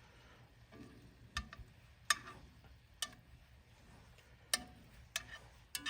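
Metal cooking utensils clicking and tapping against a pan, about half a dozen sharp, separate clicks at irregular intervals.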